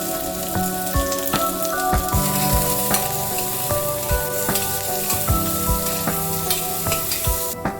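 Food sizzling in hot oil in a pan while being stirred, with background music playing over it. The sizzle cuts off abruptly near the end.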